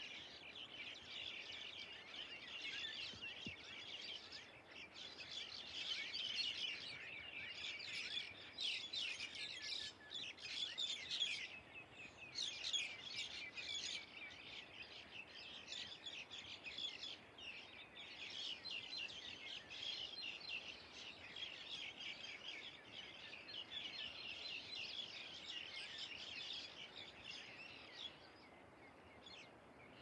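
Early-morning chorus of many small birds chirping and twittering at once, a dense, continuous chatter that is busiest around the middle and thins out near the end.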